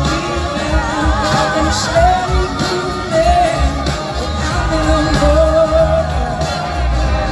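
A large blues-rock band playing live with singing, amplified through the venue's PA and heard from the audience.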